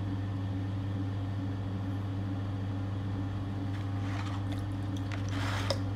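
Electric potter's wheel humming steadily as it spins a wet clay cylinder. Short wet scraping and dabbing noises from hands, clay and water come in near the end.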